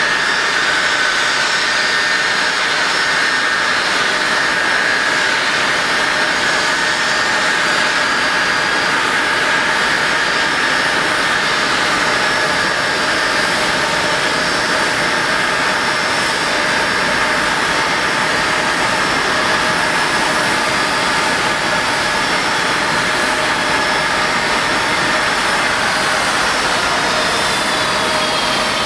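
Boeing 767-300's twin jet engines running at idle, a steady loud whine over a broad rush of noise. Over the last few seconds the whining tones start falling in pitch as the engines spool down with the airliner parked at the gate.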